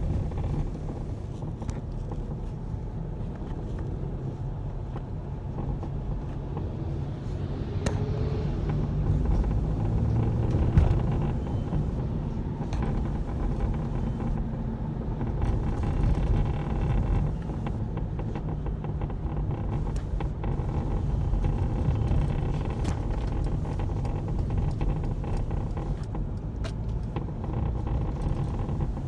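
Mercedes-Benz W447 van heard from inside while driving: steady road and engine rumble with scattered clicks and rattles from the left sliding door. This abnormal sliding-door noise has become louder since a dealer adjustment.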